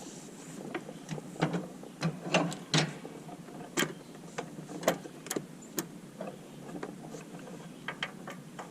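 Irregular sharp clicks and taps from a new lawnmower carburetor fuel shutoff solenoid energised by test leads on a battery, its plunger snapping in and out: the sign that the solenoid works. A steady low hum runs underneath.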